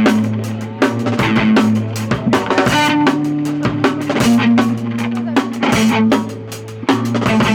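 Rock music: electric guitar and bass holding low notes that change every second or two, over fast, dense drumming.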